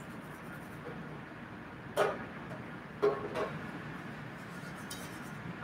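Steady hum of a commercial kitchen exhaust hood, with sharp metal clanks of a utensil knocking against a pot about two seconds in and again about three seconds in.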